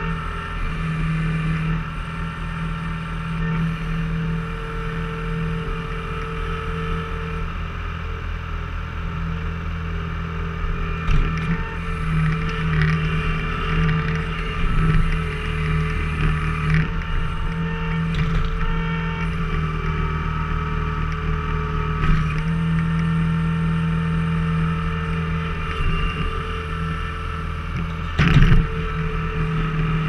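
Skid steer diesel engine running steadily under hydraulic load, with a few short sharp knocks and cracks, the loudest near the end.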